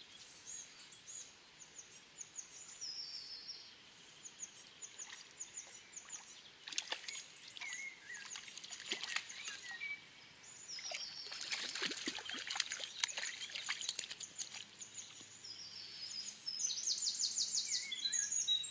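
Songbirds singing in repeated high chirping phrases, with a fast trill near the end, over irregular water splashes, loudest in the middle, as a small brown trout is played on a fly line and landed by hand.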